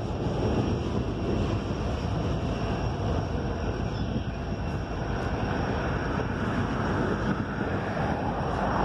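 Freight cars rolling slowly under the bridge: a steady rumbling rush of steel wheels on rail, with wind on the microphone.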